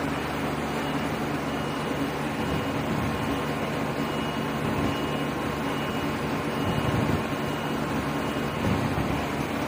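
Okuma LH-50NBD heavy-duty CNC lathe running, a steady machine hum and whir as its carriage feeds along the Z axis, with a faint steady whine over it. The low rumble swells a few times in the second half.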